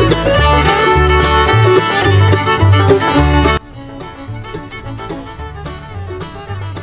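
Instrumental background music in a bluegrass style, fiddle and banjo over a stepping bass line. It drops sharply in volume about three and a half seconds in and carries on more quietly.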